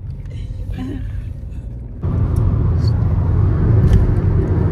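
Low, steady rumble of a road vehicle on the move, which jumps abruptly louder about two seconds in.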